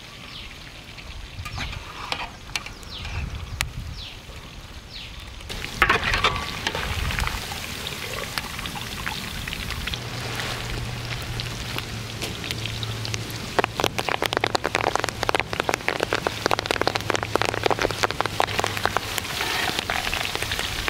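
Coated chicken pakoda pieces deep-frying in hot oil: a steady crackle and sizzle that gets suddenly louder about six seconds in and turns into dense, rapid popping past the middle. A low steady hum runs under it for several seconds.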